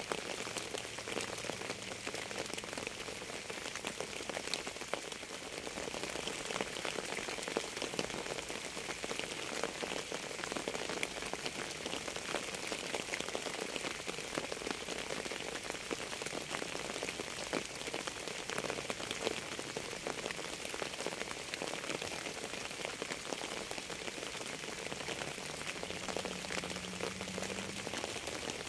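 Steady rain falling on a surface, an even hiss with individual drops ticking through it.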